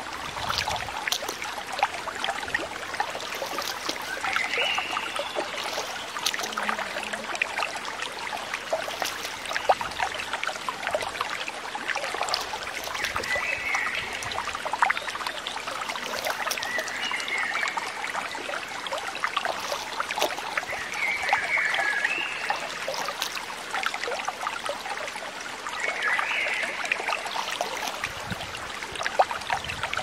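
Shallow water sloshing and splashing around feet wading through a weedy shallow, a steady patter of small splashes and trickles. A few short chirps sound over it now and then.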